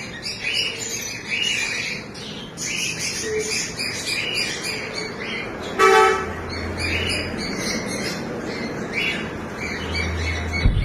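A colony of cockatiels and budgerigars chirping and calling continuously, many short calls overlapping. About six seconds in, a short, loud honk stands out above the birds, and a low rumble follows for a couple of seconds.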